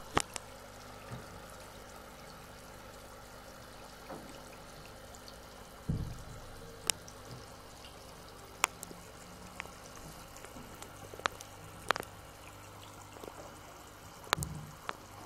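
Scattered sharp drips and small splashes of water in a shallow white tub holding a live fish, over a faint steady hum, with a heavier splash or knock about six seconds in and a cluster near the end.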